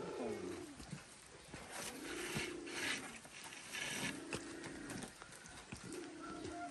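Dove cooing: a low coo of about a second, repeated about every two seconds, three times. Between the coos come short bouts of rustling and scraping.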